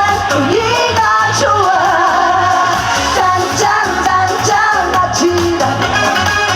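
Upbeat Korean trot song with a steady, regular bass beat, a woman singing over the backing track.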